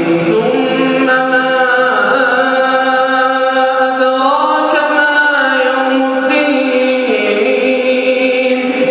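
A man chanting Quran recitation in a melodic tajweed style, holding long drawn-out notes that step up and down in pitch.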